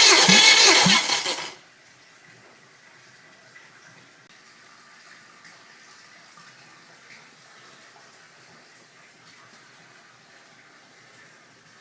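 Subaru EJ201 2.0-litre flat-four engine running with a pulsing note, then cutting off abruptly about a second and a half in; afterwards only a faint steady hiss.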